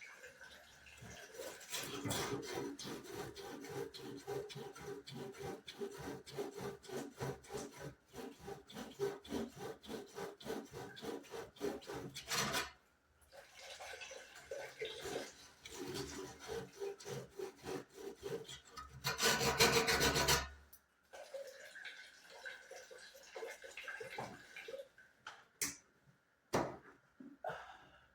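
Rapid, rhythmic back-and-forth rasping strokes, like hand sawing or filing, in two long runs with a short break between. A louder rushing noise comes about two-thirds of the way in, then a few scattered clicks.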